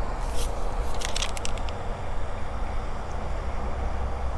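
Steady low outdoor rumble, with a few short clicks and crackles about half a second and a second in.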